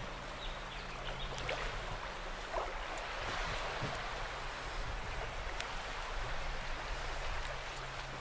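Gentle water lapping and splashing at the surface, with a faint, steady low hum underneath.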